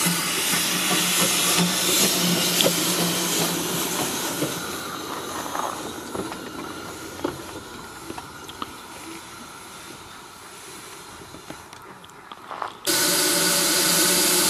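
Narrow-gauge steam locomotive "Alan George" standing in steam and hissing. The hiss is loud at first, fades away through the middle with a few small metallic clicks, and then a loud rush of steam starts suddenly near the end.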